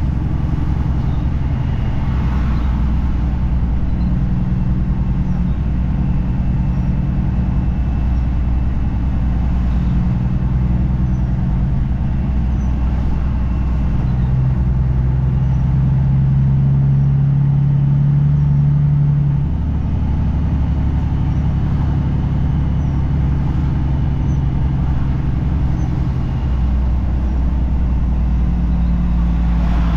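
Semi truck's diesel engine running steadily under way, heard from inside the cab. About halfway through the engine note grows louder, then drops back a few seconds later.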